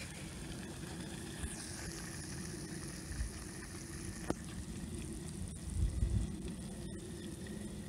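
Oil sizzling and boiling on the casing of an overheated, stopped Briggs & Stratton Quantum lawnmower engine, a steady faint hiss. Under it is a low wind rumble on the microphone that swells briefly about six seconds in.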